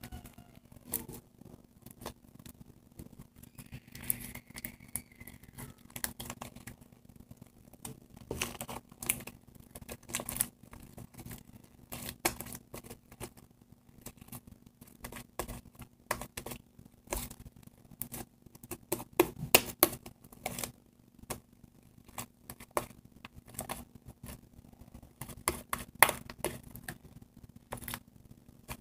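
Shaving-cream slime being kneaded and stretched by hand, giving irregular clicks and crackles throughout.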